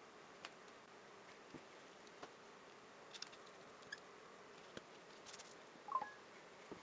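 Near silence: a faint steady hiss with scattered light clicks, and a slightly louder cluster of clicks about six seconds in.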